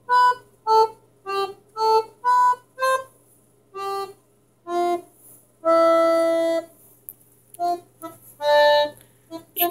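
Electronic keyboard set to an organ voice, keys pressed one at a time with a small dog's paw: about a dozen short, uneven, separate notes, with a longer held cluster of notes about six seconds in.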